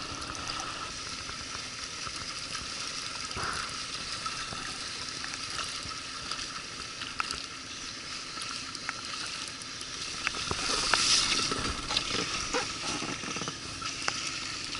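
Steady hiss of rain and river water with scattered small ticks, and a louder splash about eleven seconds in as a hooked fish thrashes at the surface beside the boat.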